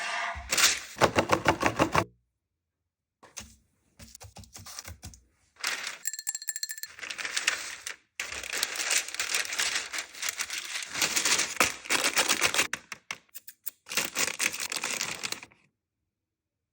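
Food-preparation sounds in short edited cuts: bursts of rapid clicking and tapping with rustling, broken by short silences, and a steady tone for about a second around six seconds in.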